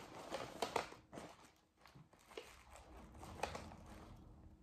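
Faint scattered clicks and rustles as scissors cut and hands tear open the clear plastic-wrapped moss bundle around a plant's roots.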